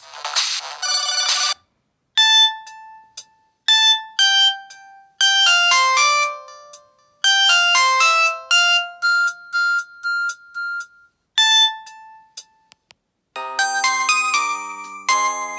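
Samsung GT-E1080W phone ringtones played one after another. A dense buzzy tone cuts off about a second and a half in, then a melody of separate electronic notes, and near the end a new tune with several notes sounding at once.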